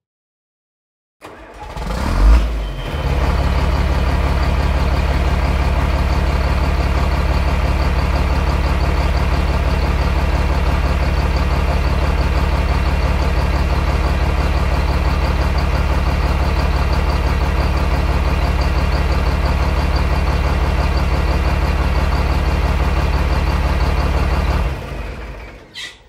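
A large engine starting about a second in, surging briefly, then running at a steady, even speed with a low hum until it dies away near the end.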